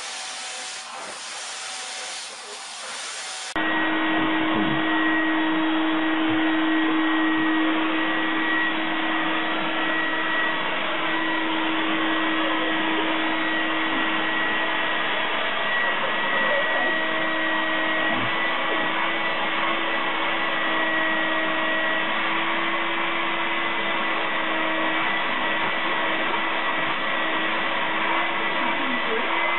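Vacuum cleaner running steadily through its hose, a constant whine over a rushing of air. It starts suddenly a few seconds in, after a softer steady hiss.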